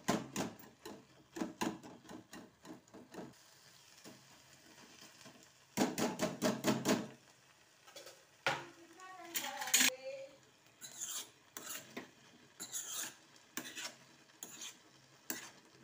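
A wire masher pressing and scraping soft cooked tomato mixture against the bottom of a frying pan, in rhythmic strokes of about three a second, with a fast flurry of strokes about six seconds in and more scattered scrapes later.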